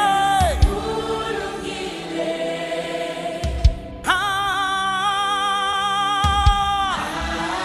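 Live gospel worship music: a praise team singing with the band. About four seconds in, a voice holds one long note with vibrato for about three seconds, over a few low beats.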